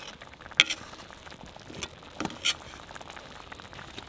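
A metal skimmer clinking and scraping against a cast-iron kazan while heaping rice into a mound, a handful of sharp clicks, over the faint steady sizzle of the last water boiling off under the rice.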